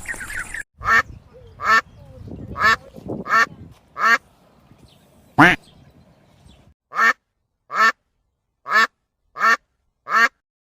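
Duck quacking: about eleven short single quacks, roughly one a second. Background noise under the first few quacks drops away about two-thirds of the way through, leaving the later quacks clean against silence.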